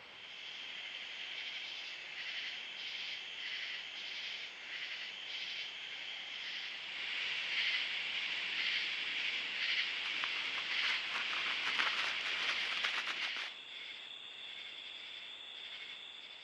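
High-pitched animal calls: a chirp repeating about twice a second, a louder stretch of rapid clicking about ten seconds in, then a steady high trill near the end.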